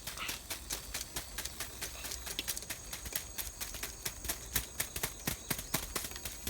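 Dried luffa gourds being squeezed and handled: a fast, irregular run of dry clicks and crackles.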